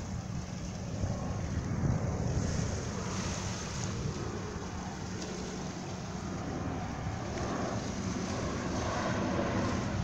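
Wind on the microphone over small waves washing against shoreline rocks: a steady rushing noise.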